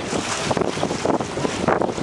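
Wind buffeting the microphone in uneven gusts on a boat at sea, over the rush of waves and water.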